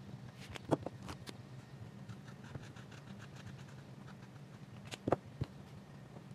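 Ohuhu markers in use on sketchbook paper: faint scratching of a marker tip, with two clusters of sharp clicks, about a second in and again near the end, as markers are swapped and their caps snapped off and on. A low steady hum runs underneath.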